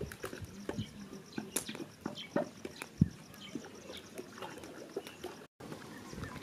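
A metal cooking basin and a wooden stirring stick being handled: scattered light clicks and knocks, with one sharper knock about three seconds in. A faint, rapid high chirping runs behind.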